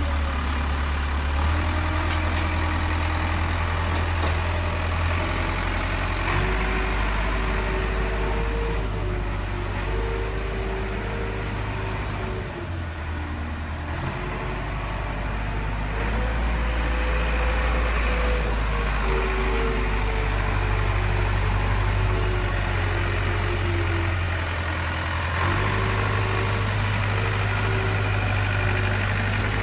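Heavy engine sound of a Caterpillar track loader, idling with its revs stepping up and down every few seconds and easing off briefly about twelve seconds in.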